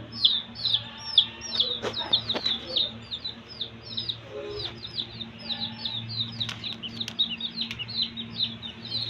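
Young chickens about eight weeks old peeping continuously, several short falling peeps a second, over a steady low hum.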